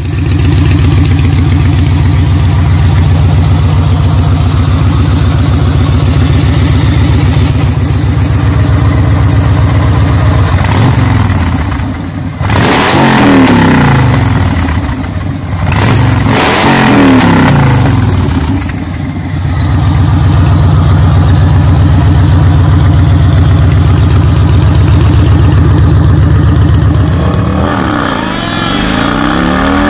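Large V-twin cruiser motorcycle with chrome drag-pipe exhausts idling, revved several times in quick succession in the middle before settling back to idle; the engine note changes near the end.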